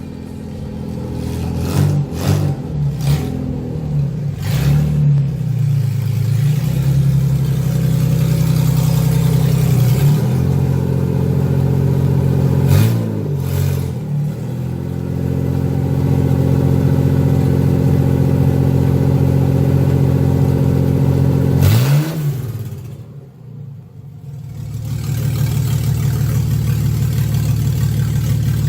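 Sandrail's engine running under way on a test drive. Its note dips and climbs again several times, as it does between gear changes, and about three quarters of the way through it drops off to a low level for a couple of seconds before building up again.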